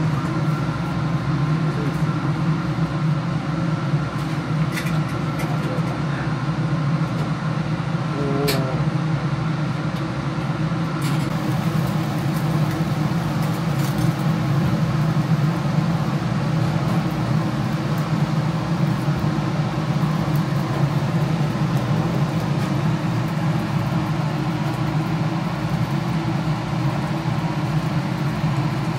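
Steady low mechanical drone of a kitchen extractor hood fan running over a charcoal grill, with a few faint clicks of metal skewers.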